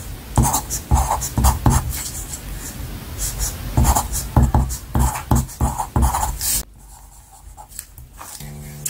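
A pencil writing on paper in quick scratchy strokes, jotting numbers and letters, which stop about two-thirds of the way through. Near the end, background music comes in.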